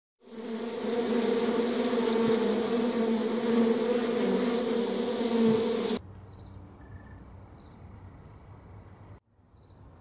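Loud, steady buzzing of a mass of honeybees, one even droning pitch, which cuts off abruptly about six seconds in. After that only faint high chirps repeat over a quiet outdoor background.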